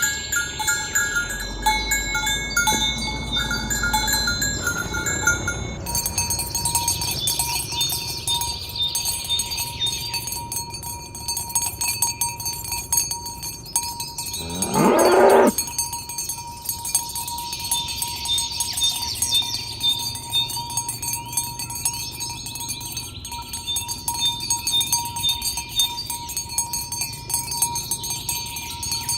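A cow moos once, a single call of about a second roughly halfway through and the loudest sound here, over a constant background of high ringing tones and fast ticking. The background changes abruptly about six seconds in.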